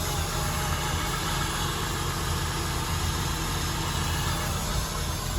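2003 Acura TL Type S's 3.2-litre V6 idling steadily.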